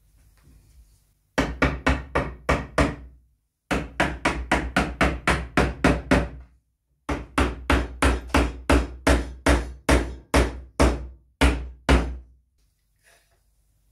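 Small soft-faced mallet knocking rapidly on a wooden rail, about four to five blows a second in three runs, driving the rocking horse's top rail down onto the tenons of its wooden legs.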